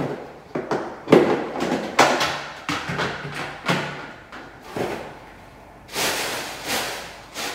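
Used cat litter being handled and emptied into a plastic bag: a run of knocks and scrapes at about one or two a second, then two longer rustling sweeps near the end.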